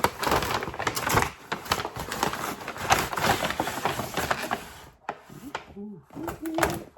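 Package being opened by hand: rapid crinkling, rustling and clicking of packaging that stops about five seconds in, followed by a few quieter handling noises.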